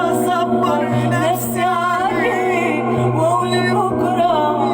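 Egyptian Arabic pop song: a wavering, ornamented melody with sliding notes over sustained bass notes that shift about once a second.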